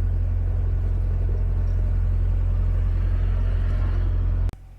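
Narrowboat's diesel engine running steadily under way, a loud low rumble mixed with wind on the microphone. It cuts off suddenly near the end.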